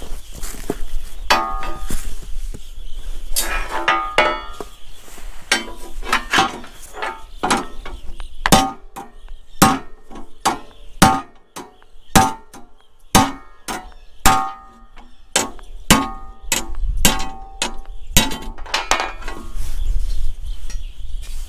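Ball-peen hammer striking a steel tractor foot plate over a steel bench in irregular blows, roughly one or two a second, many of them ringing metallically. The bent plate is being hammered flat again.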